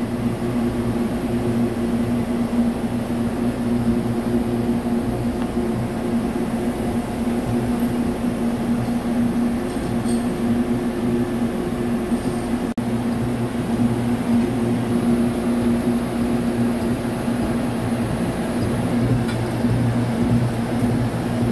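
Steady hum of a running vertical lathe and shop machinery: an even drone with a low humming tone that holds constant throughout.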